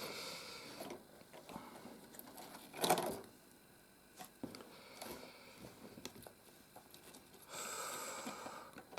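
Faint handling of LEGO bricks and thin lighting-kit wires: small plastic clicks and ticks, with stretches of rustling near the start and again near the end. A short vocal murmur comes about three seconds in.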